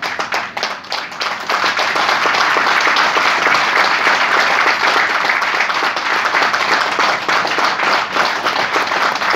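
Audience applauding: scattered claps that build, about a second and a half in, into dense, steady applause.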